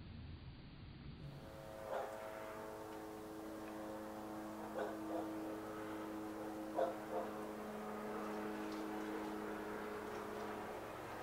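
A steady droning hum made of several even tones, with a dog barking a few times over it, some barks in quick pairs, the loudest about seven seconds in.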